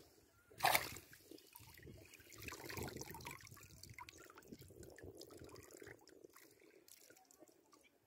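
Water trickling and dripping from a wet cast net as it is lifted out of shallow river water, with one louder splash less than a second in.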